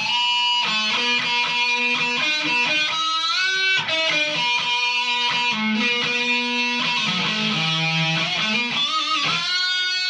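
2005 B.C. Rich Mockingbird electric guitar with humbucker pickups, played through a Vox amp with overdrive: ringing distorted chords and notes, with a string bend rising in pitch about three and a half seconds in and another near the end.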